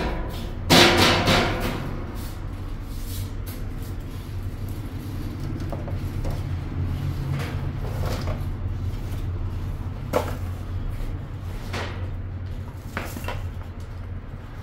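Background music with a steady low hum, broken by a few sharp knocks and clatters, the loudest about a second in.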